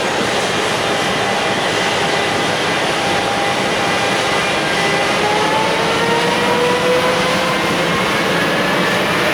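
Container freight train hauled by an EF510 electric locomotive pulling away and gathering speed: a steady rolling rumble of wheels on rail, with faint whines that slowly rise in pitch.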